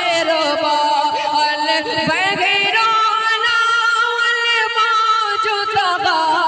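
A man singing a naat unaccompanied, drawing out ornamented, gliding notes and holding one long note through the middle.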